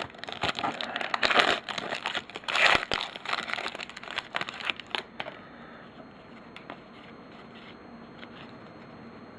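Plastic-foil trading card pack wrapper being torn open and crinkled for about five seconds, then only a few faint ticks of handling.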